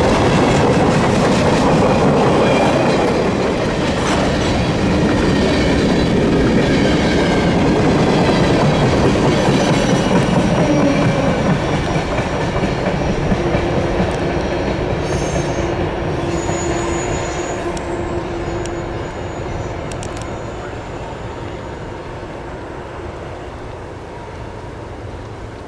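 Freight train cars rolling past, wheels clattering and clacking over the rails, with thin wheel squeals in the middle. The rumble grows steadily fainter as the train moves away.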